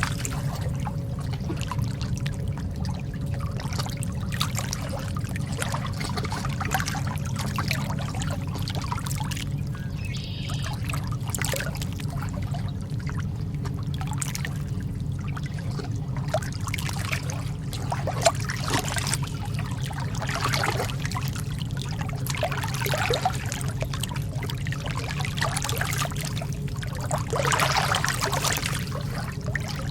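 Calm sea water lapping and trickling in small irregular splashes over a steady low rumble, with a slightly louder wash near the end.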